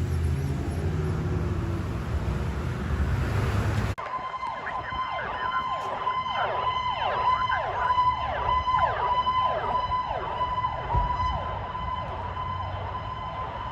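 Emergency vehicle siren: after a sudden cut about four seconds in, a steady high tone sounds together with a fast series of falling sweeps, about two a second. Before the cut there is vehicle engine and road noise.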